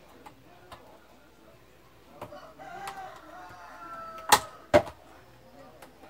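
Hard plastic clicks and knocks as a fan's rear grille is worked onto its motor housing by hand, with two loud sharp clicks about four seconds in. A drawn-out pitched sound runs in the background for about two seconds just before them.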